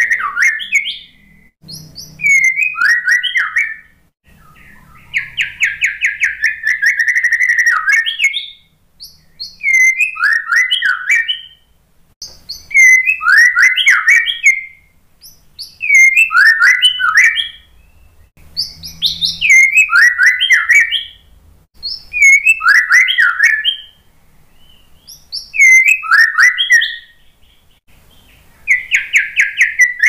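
White-rumped shama singing loud, varied song phrases about every two to three seconds, each a mix of sweeping whistles and fast rattling trills, with one longer trill a few seconds in.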